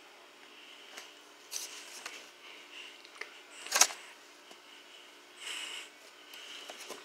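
Brief rustling and handling noises, with a click about a second in and one sharp, louder crackling burst a little under four seconds in.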